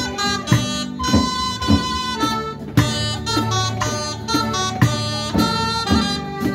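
Live folk dance band playing a traditional Occitan dance tune: wind instruments carry a bright melody over diatonic accordion and guitar, with a steady drum beat about once a second.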